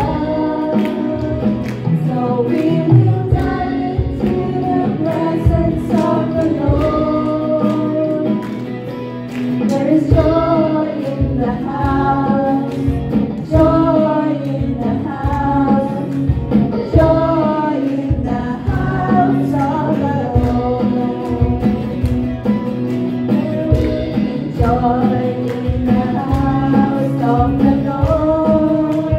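Live worship band playing a gospel-style song: two women singing the melody into microphones over guitars and an electronic drum kit keeping a steady beat, amplified through PA speakers.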